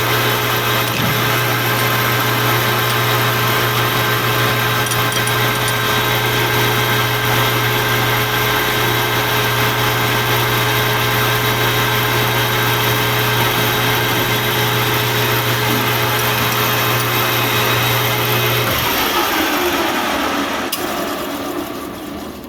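Lathe running steadily with a low motor hum while a centre drill cuts a centre hole in the end of a spinning Delrin (acetal) bar. Near the end the hum stops and the machine winds down.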